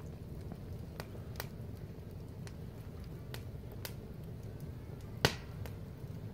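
Fire crackling in a steel fire barrel: about seven sharp pops spread across the few seconds, the loudest a little after five seconds in, over a steady low rumble.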